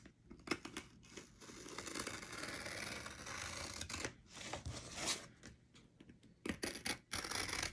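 A mailed package being opened by hand: paper or packing material tearing and rustling for a couple of seconds, with scattered sharp clicks and scrapes before and after.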